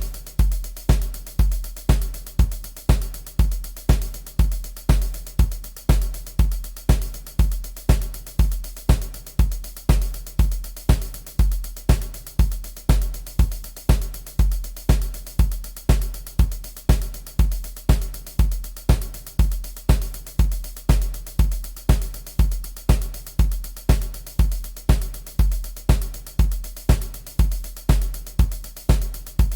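Programmed MIDI drum beat: a steady, deep bass drum about twice a second with crisp cymbal or hi-hat hits over it, repeating evenly without change.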